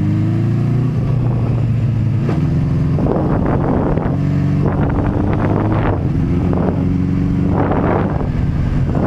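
Motorcycle engine running under way, its pitch rising in the first second as it accelerates and then holding steady. Several rushes of wind noise come over the microphone.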